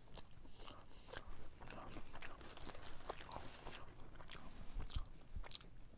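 A person biting and chewing a cheese-stuffed fried chicken fillet, with many small clicks and soft crunches from the mouth throughout.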